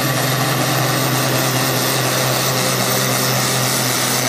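International Harvester tractor's diesel engine running at full load while pulling a weighted sled, a steady low drone that holds without rising or falling.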